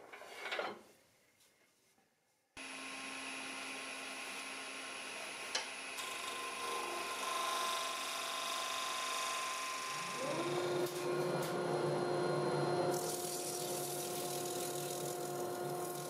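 Wood lathe running while a turning tool cuts into a spinning wood-and-resin blank: a steady scraping, rasping cut over the machine's hum. It starts abruptly about two and a half seconds in, after a few light knocks, and grows heavier and fuller about ten seconds in.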